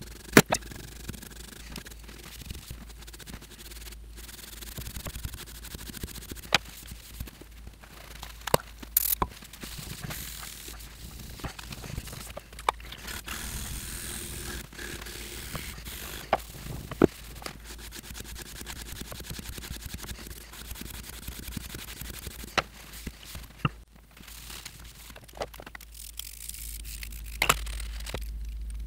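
A small brass wire brush scrubbing and scraping along the metal rails of an aluminium lathe bed, broken by many sharp clicks and taps as the tool and parts knock against the metal.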